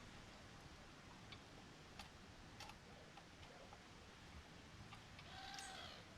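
Near silence: room tone with a few faint, scattered clicks, and a brief faint chirp near the end.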